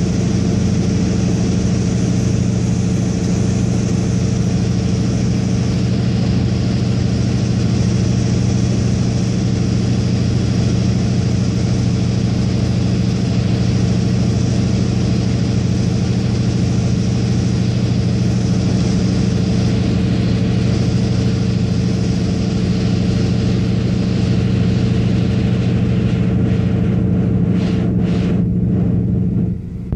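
Antonov An-2's nine-cylinder radial engine and propeller droning steadily in flight, heard from inside the cabin, with a brief dip in level near the end.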